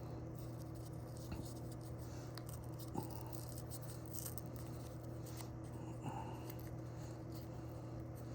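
Faint handling of a gum pack's paper wrapper, a few soft clicks and rustles, over a steady low hum.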